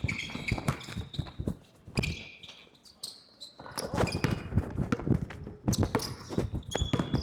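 Basketball being dribbled on a gym floor amid players' running footsteps, the thumps coming thick and fast from about halfway through. Brief high squeaks come near the start, about two seconds in, and near the end.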